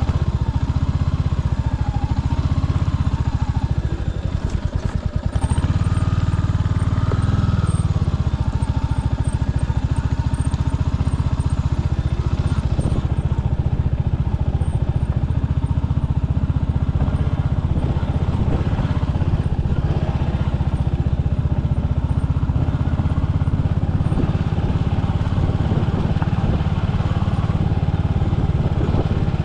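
Royal Enfield Hunter 350's single-cylinder engine running steadily as the motorcycle is ridden. The engine drops off briefly about four seconds in, then picks up again and pulls harder for a few seconds before settling back to a steady run.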